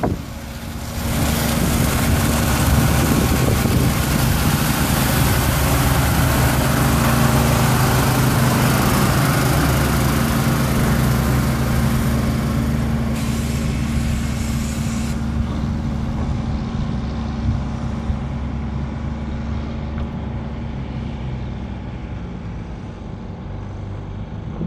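Water tanker truck's diesel engine running steadily as it drives by spraying water onto a dirt road, with a loud hiss of spray and tyres. The sound is loudest as the truck passes close, then the hiss drops away about fifteen seconds in and the engine fades as the truck moves off.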